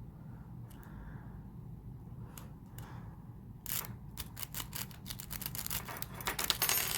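Metal wave rake scraping in and out of a practice lock's keyway while tension is held on the plug, the pins clicking as they are bumped up. A few light clicks come first, then a fast, dense run of rattling clicks starts about three and a half seconds in and quickens toward the end.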